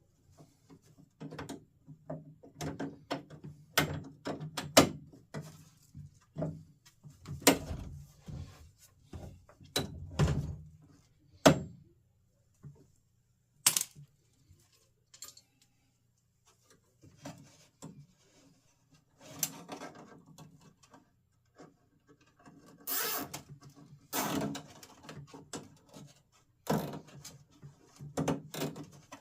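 Irregular clicks, knocks and light metallic clatter of hand work on a Jeep YJ door latch assembly and its small parts. The clatter is busy at first, drops to a few isolated clicks for several seconds past the middle, then picks up again.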